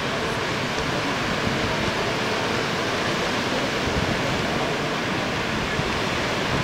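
Ocean surf: a steady rush of small waves breaking and washing up a sandy beach.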